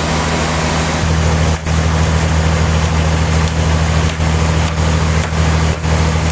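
Heavy machinery running steadily: a constant low hum under an even rushing noise, with a few brief dips.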